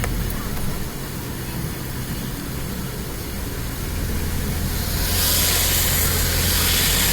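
A motor vehicle running on a flooded road, with a steady low rumble; about five seconds in, a loud hiss of tyres through water swells up.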